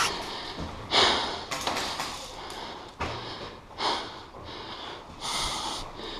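A person breathing hard: several short, hissy breaths a second or two apart, as after running.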